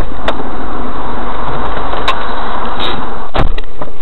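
Car driving, heard loud inside the cabin: a steady rush of engine and road noise, with a few sharp clicks or knocks, the strongest about three and a half seconds in.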